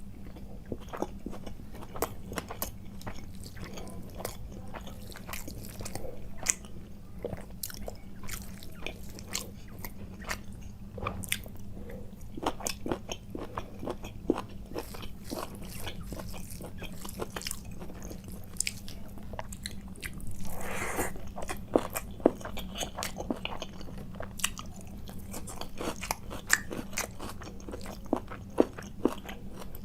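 Close-miked eating: a person chewing and biting through a rice-and-curry meal, with frequent sharp wet mouth clicks and crunches. About twenty-one seconds in there is a brief louder rushing noise, and a steady low hum runs underneath.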